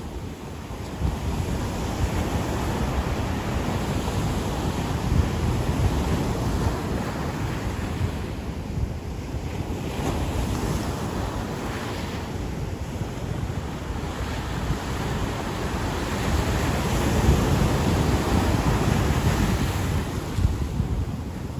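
Ocean surf washing onto a beach, swelling and easing as waves break, with wind buffeting the microphone.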